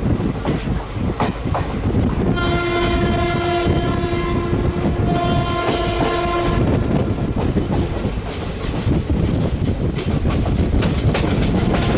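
WAM4 electric locomotive's horn honking in long, repeated blasts from about two seconds in until past the halfway point, over the steady rumble and wheel clatter of the express train running through; the horn starts again near the end.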